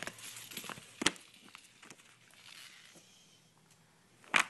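Hardcover picture books being handled and laid on top of one another: two sharp knocks, about a second in and near the end, with soft rustling between.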